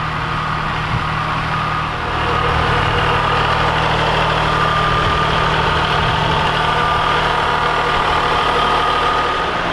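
Kubota compact tractor's diesel engine running steadily at low speed as the tractor drives up, getting louder about two seconds in as it comes closer.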